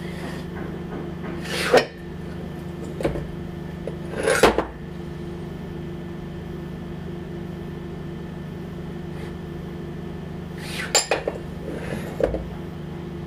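A few sharp clinks and knocks of small hard objects being handled, about four times, over a steady electrical hum.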